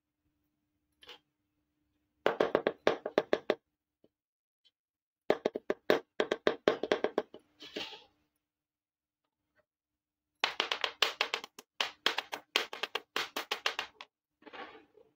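Small plastic toy kitchen pieces being handled and tapped on a hard board: three bursts of rapid light clicking taps, about five or six a second, with a short scratchy slide after the second and third bursts.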